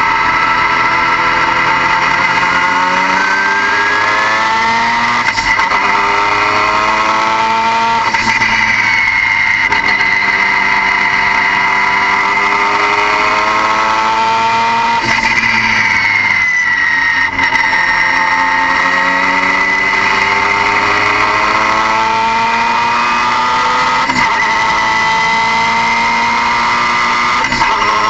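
Car engine pulling hard, its pitch climbing for a few seconds at a time and dropping back at each gear change, over and over, with a steady high whine running underneath.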